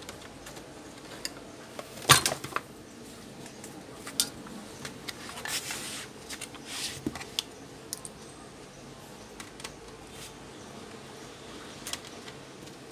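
Hands handling a laptop's plastic case and parts: one sharp knock with a short clatter about two seconds in, then scattered lighter clicks and rustles.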